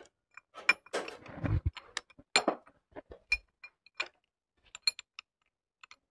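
Irregular metallic clicks and clinks of a steel bracket and its bolts knocking against a Mitsubishi 4D35 diesel engine block as the bracket is fitted and a bolt is threaded in by hand, busiest in the first half and thinning to scattered ticks.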